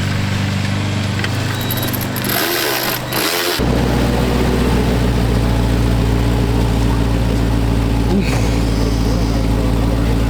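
Car engine starting about three and a half seconds in, then idling steadily with a deep, even rumble.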